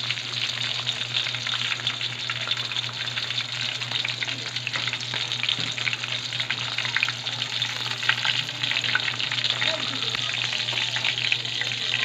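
Pieces of tulingan (tuna) deep-frying in hot oil in a wok: a dense, steady sizzle and crackle of tiny pops throughout, over a steady low hum.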